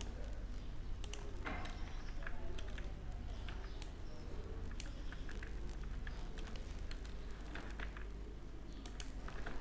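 Computer keyboard keystrokes and mouse clicks, short and irregular, over a low steady hum.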